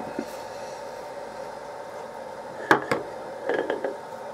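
A few sharp clicks and small metallic knocks as a hand takes hold of a machined steel cylinder block and the expanding mandrel it is mounted on: two clicks near the middle, then a short cluster of knocks. A steady hum runs underneath.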